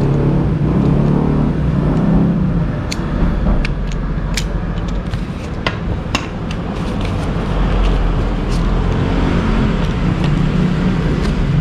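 Steady low rumble of a motor vehicle engine running throughout, with sharp light clicks of metal parts as a brake master cylinder and its lever are handled, most of them in the middle of the stretch.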